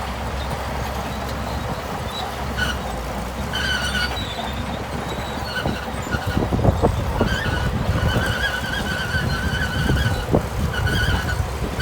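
Shantui crawler bulldozer working: a steady low diesel drone with its steel tracks squealing on and off, the squeals getting longer in the second half, and clanking knocks starting about halfway through.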